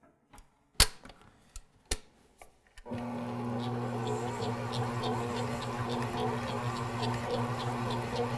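A few sharp clicks and clunks as the Smeg stand mixer's tilt head is lowered and locked. About three seconds in, its motor starts and runs with a steady low hum, turning the dough hook through a sticky bread dough, with a light regular ticking on top.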